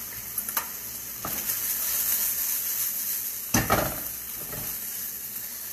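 Chicken frying in a pan with a steady sizzle, a few light clicks early on and a louder metallic clatter about three and a half seconds in.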